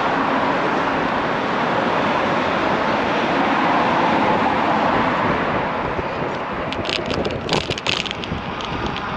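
Wind rushing over the microphone over street traffic noise, steady throughout. A brief cluster of sharp clicks and rattles comes about seven to eight seconds in.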